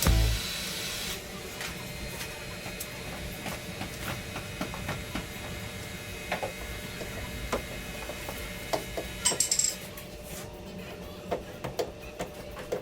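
Scattered light clicks and knocks of metal tools and panel work during car body dent repair, over a steady faint background hum, with a short cluster of sharper clicks about nine seconds in.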